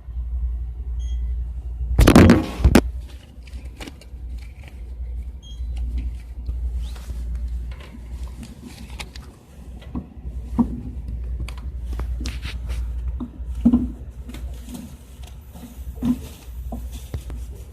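Low steady rumble with scattered knocks and thumps, the loudest a pair about two seconds in: handling noise from a phone being carried and moved about.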